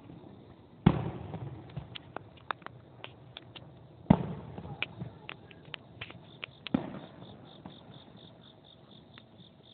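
Aerial fireworks bursting: three loud booms about three seconds apart, each followed by a rumbling echo, with scattered sharp crackling pops in between.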